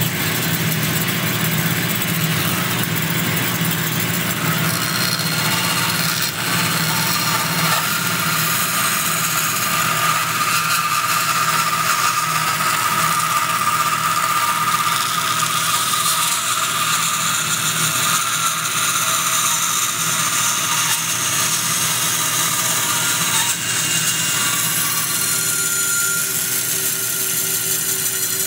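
Bandsaw running steadily and cutting through a wooden spoon blank, with a steady motor hum and a whine that is strongest through the middle of the cut.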